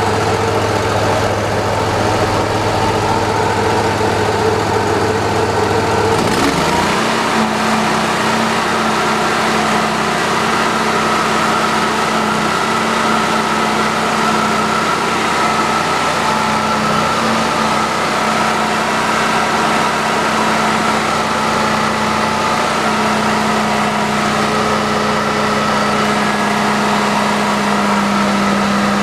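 Truck-mount carpet cleaning machine's engine running steadily. About six seconds in it speeds up, as the vernier throttle is turned up, then holds at the higher speed with a steady whine above the engine note.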